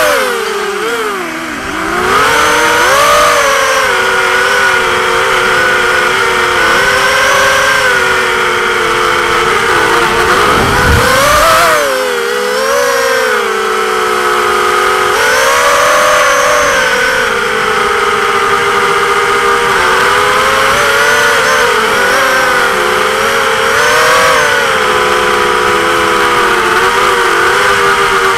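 Onboard sound of an XHover MXP230 racing quadcopter in flight: its brushless motors and propellers whine, the pitch rising and falling with the throttle. The whine dips briefly about a second in and again about twelve seconds in.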